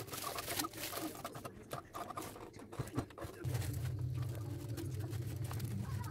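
Crumpled aluminium foil crinkling and rustling as it is pulled open by hand, then a wooden spatula scraping and lifting on the foil. About three and a half seconds in, a steady low hum starts and continues.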